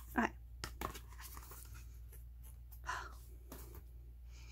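Cardboard album packaging and photocards being handled: a few short rustles and soft knocks over a faint steady low hum.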